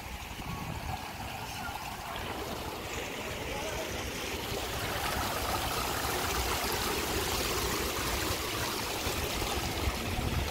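A shallow sheet of water flowing over a glass roof: a steady rush of trickling water that grows louder about halfway through.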